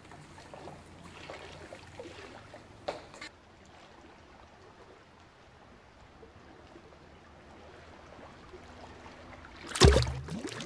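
Water sloshing and trickling, with a sudden loud bump just before the end.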